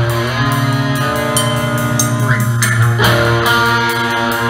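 Rock band playing live through a PA: distorted electric guitars holding sustained notes over a bass guitar line, with a drum kit keeping time with regular cymbal hits.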